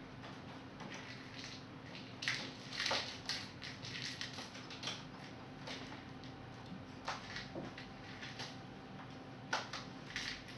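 A kitten playing on a wooden table, making irregular rustling, crinkling and scratching sounds as it paws and rolls on a sheet of paper, with a few light knocks. A faint steady hum runs underneath.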